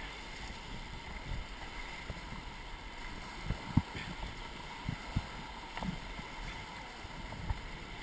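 Steady rush of river water around a raft, with a few short dull thumps.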